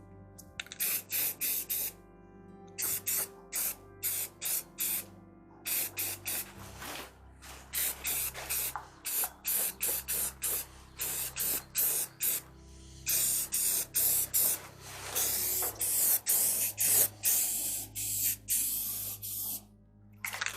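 Spray paint hissing out in many short bursts, then longer passes near the end, as bare welded and ground sheet metal is coated to keep it from rusting.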